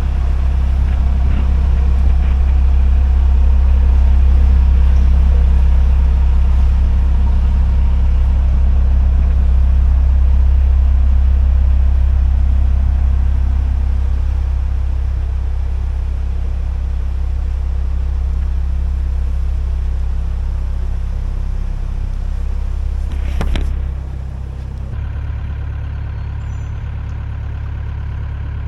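Narrowboat's diesel engine running steadily at low revs with a deep, even hum. About 23 seconds in there is a sharp knock, and the engine sound then drops a little.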